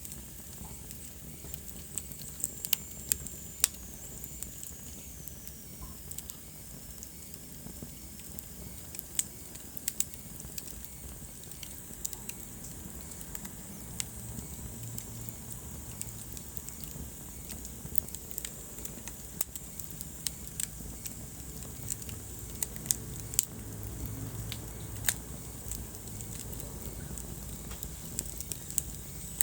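Wood fire burning in a fireplace, crackling with irregular sharp pops over a low steady rumble of the flames. A faint high whistle falls in pitch about three seconds in.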